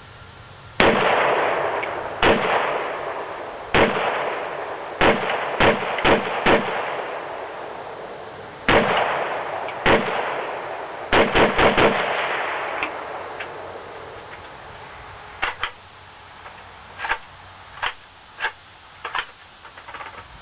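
WASR-10/63 AK-pattern rifle in 7.62x39 firing about a dozen loud shots, each followed by a long echo: single shots a second or so apart, then a rapid string of four about halfway through. Fainter, sharper shots follow in the second half.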